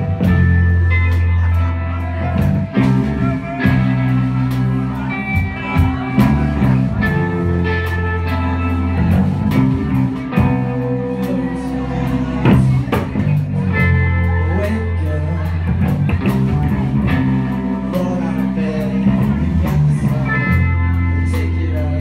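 Live rock band playing: electric guitars over a drum kit, with a strong, sustained bass line.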